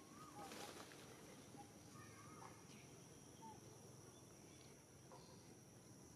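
Near silence: faint outdoor ambience with a thin steady high tone, a few soft short chirps and a brief rustle about half a second in.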